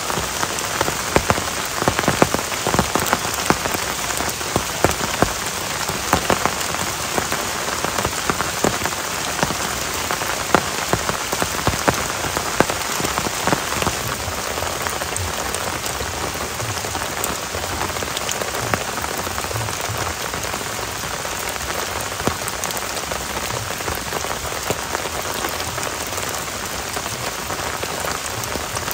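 Heavy rain falling steadily, with many large drops striking close by as sharp ticks. The ticks are thickest in the first half and thin out later.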